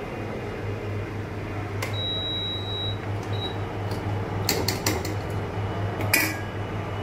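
Induction cooktop humming steadily as it heats a steel pot of tea, with a high beep for about a second early on. A spoon clinks several times against the steel pot as the tea is stirred, a quick run of clinks about halfway through and one more near the end.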